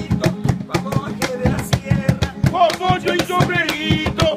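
Live Peruvian folk music: an acoustic guitar played in a quick, even rhythm, with a man's voice singing over it and sharp percussive strokes on the beat.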